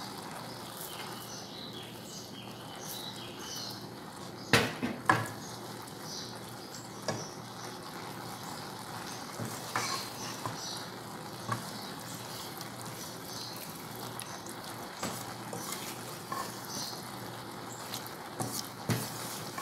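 Wooden spoon stirring a thick, creamy shrimp stroganoff in a metal pot, with a few sharp knocks of the spoon on the pot. Under it runs a steady low hiss of the sauce cooking.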